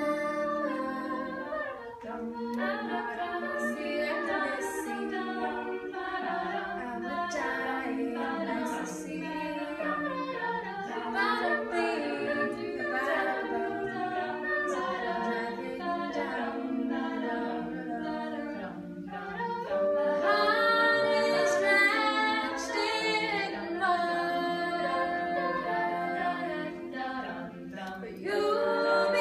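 All-female a cappella group singing in harmony, several voices at once with no instruments; the singing grows louder about twenty seconds in after a brief dip.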